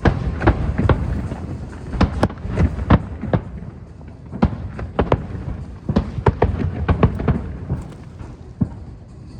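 Aerial fireworks bursting: many sharp bangs at irregular intervals over a steady low rumble.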